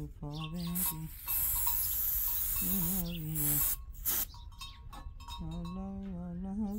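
A man singing in long, wavering held notes. About a second and a half in there is a loud hiss lasting about a second and a half.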